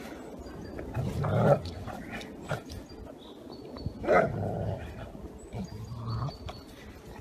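Two German Shepherds growling and barking as they play tug-of-war over a stick. The loudest outbursts come about a second in and about four seconds in, with a shorter one near six seconds.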